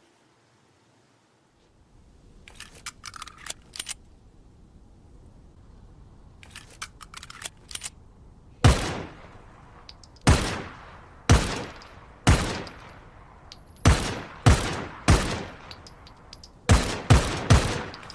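9mm pistol firing ten shots at uneven spacing, with a fast run of three near the end, each shot followed by a short echoing tail. Lighter clicks come before the first shot.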